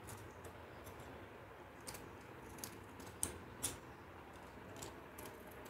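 Scissors cutting a thin strip of craft paper, faint, with a few short sharp clicks over low room hiss.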